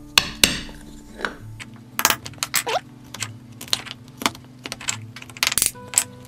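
Hand carving tools (chisel, gouge and mallet) working a small wooden piece: a string of sharp, irregular clicks and knocks, with acoustic-guitar background music underneath.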